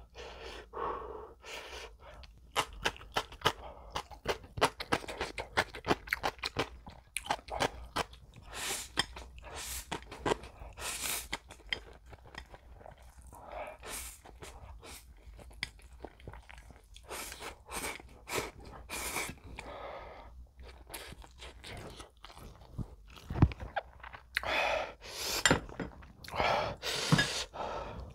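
Close-miked slurping and chewing of spicy stir-fried instant noodles, with many small wet mouth clicks and lip smacks and louder slurps and breaths.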